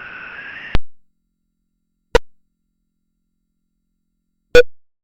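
Synthetic electronic sound effect: a short buzzy tone that cuts off with a sharp click under a second in, then two brief sharp clicks, each carrying a short low tone, spaced well apart with dead silence between.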